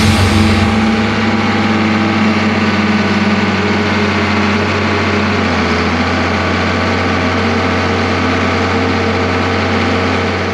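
Tractor diesel engine running steadily at a constant speed, its tone shifting slightly about halfway through.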